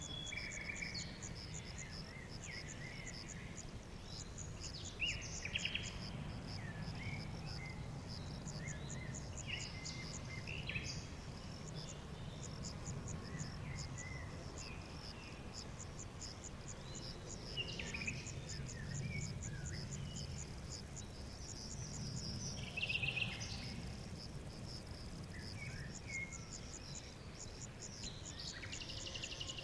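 Forest ambience: an insect chirping in rapid, evenly spaced pulses throughout, with scattered short bird chirps and whistles, the loudest about five seconds in and again a little past twenty seconds, over a steady low rumble.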